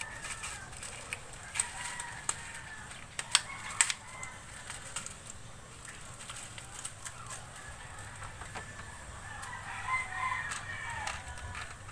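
A rooster crowing in the background, one long wavering call near the end, with a few sharp clicks and knocks earlier on.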